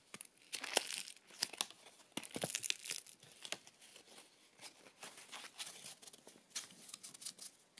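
Cotton lining fabric stiffened with dried wallpaper paste crinkling and crackling as hands bend and crumple it to test its stiffness. The crackles come quick and irregular, thickest in the first three seconds, then sparser.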